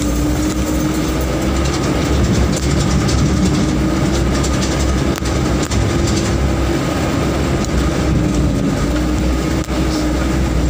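Vehicle engine running steadily under load with a low drone, while the body jolts over a rough dirt track with repeated rattles and knocks.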